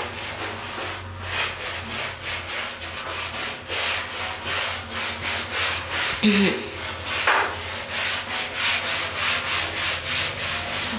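Brush scrubbing a soapy tiled bathroom floor corner with quick, steady back-and-forth strokes, a few a second.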